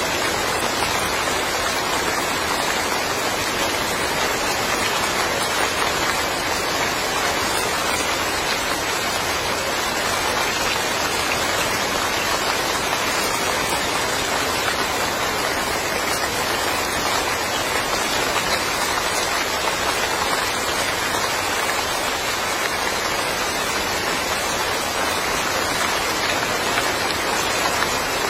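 Steady rain falling and pattering on surfaces in a yard: a dense, even hiss that keeps the same level throughout.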